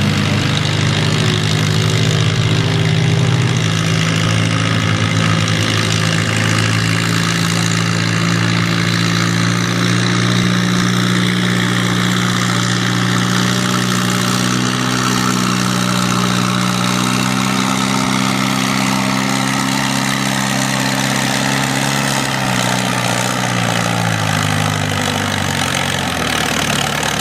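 Farm tractor engine running hard and loud through a pull, its pitch steady for most of the run, then sagging and falling near the end as it slows.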